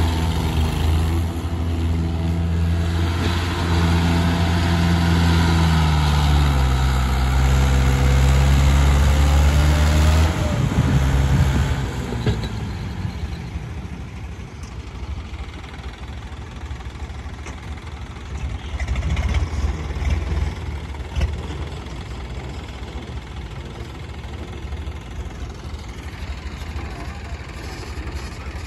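Mahindra 575 DI tractor's four-cylinder diesel engine working hard under load, hauling a heavily loaded soil trolley. Its engine speed sags about six seconds in. After about ten seconds the sound drops to a quieter, more distant tractor engine running.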